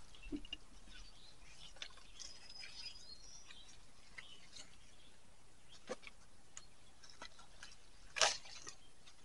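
Quiet background hiss with a few faint small clicks, a faint thin high tone about two seconds in, and one short rustle about eight seconds in.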